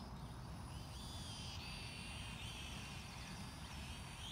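Petrel FPV quadcopter's motors and propellers whining, the pitch rising and falling as the throttle changes.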